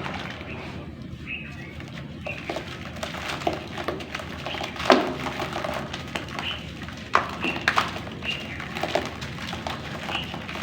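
Dry black clay crumbling and falling into water, with a low rustling hiss and several sharp cracks, the loudest about halfway through and a quick run of them shortly after. Birds chirp faintly in the background.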